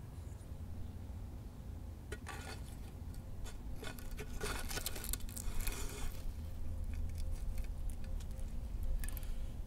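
Scraping and clinking of a clay dish with a roasted squash on it, dragged out of a clay stove with a wooden stick. There is a run of scrapes about two to six seconds in and another near the end, over a steady low rumble.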